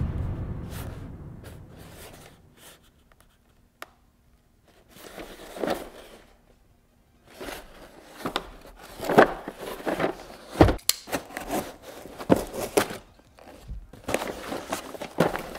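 Hands unboxing a nylon spring clamp: scattered knocks, clicks and rustles of packaging and plastic being handled, after a low sound that fades out over the first couple of seconds.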